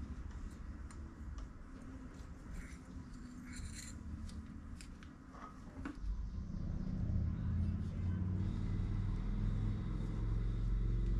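Small metal clicks and scrapes as a steel pick works at the seals of a hydraulic clutch slave cylinder on a workbench. About halfway through, a louder, steady low hum comes in and holds.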